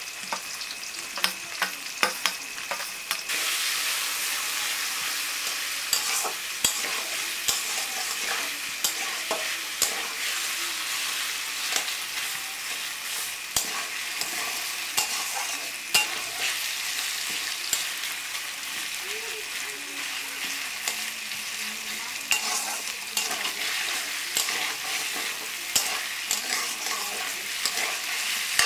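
Potato sticks, onion and green chilli frying in hot oil in a metal wok, sizzling steadily while a metal spatula stirs and tosses them, with frequent short clinks and scrapes of the spatula on the pan. The sizzle swells about three seconds in as the potatoes go into the oil.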